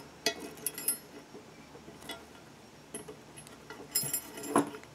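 Light metallic clicks and clinks of stainless wire rope and a loosened wire rope clamp being handled as the wire is slid through the clamp around a thimble. Scattered ticks, with a small cluster at the start and another about four seconds in.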